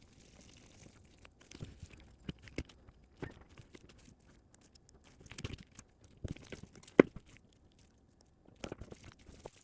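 Scattered small clicks, scrapes and knocks of a magnetic screwdriver driving small screws into a motorcycle gas cap's body, with one sharper click about seven seconds in.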